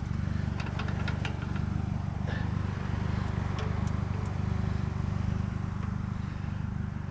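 A steady low mechanical drone like an idling engine, with a few light clicks of metal being handled in the first couple of seconds.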